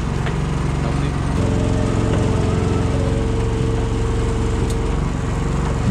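Suzuki outboard motor running steadily on a lobster boat, with a higher steady hum joining about a second and a half in and fading near the end.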